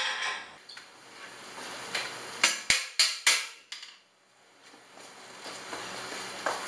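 Hand tools and steel parts knocking together while a homemade leg press frame is put together: five sharp metallic knocks in quick succession a little over two seconds in, then quiet handling and a short squeak near the end.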